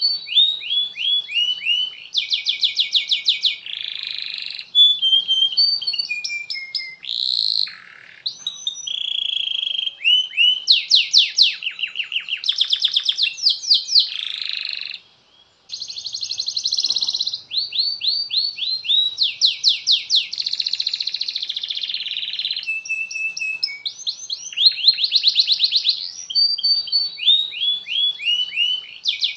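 Domestic canary singing a long, unbroken song of fast trills and rolls: rapid runs of repeated high notes that change from phrase to phrase. It pauses once, briefly, about halfway through.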